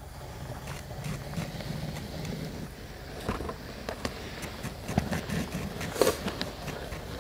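HO-scale model railroad flat car, carrying a camera and pushed by hand, rolling along the track: a steady low rumble of wheels on the rails with scattered clicks and knocks, the loudest about five and six seconds in.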